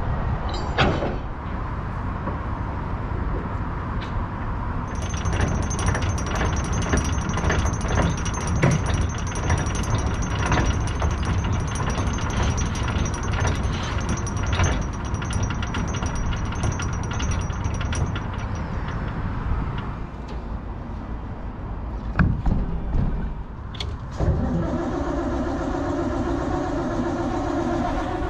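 Broad rumbling noise with many clicks and knocks, then about 24 seconds in a pulsing engine drone starts: the Dutch barge's engine being turned over, reluctant to start because the cold start has not been pulled out.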